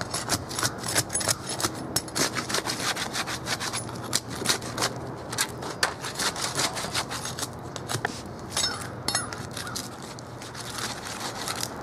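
Steel flat bar prying up asphalt roof shingles: an irregular run of scraping and clicking as the bar is worked under shingles that have melted down onto the ones beneath.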